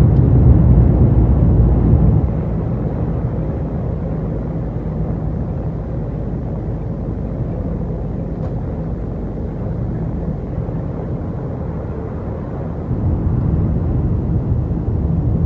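Heavy truck's diesel engine and road noise heard from inside the cab, a steady low drone. It drops a step about two seconds in and rises again near the end.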